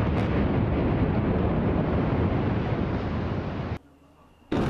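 Heavy, continuous rumble of a 20-story concrete tower collapsing in a controlled implosion. It stops abruptly a little before four seconds in, and after a short hush a loud rumble of the same kind starts again near the end.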